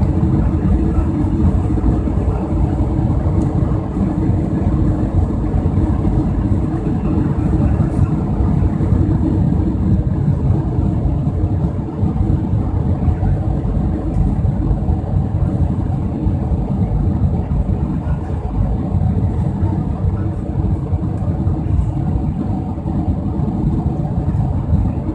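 Airbus A320's twin jet engines at takeoff power during the climb-out, heard from inside the cabin as a loud, steady rumble.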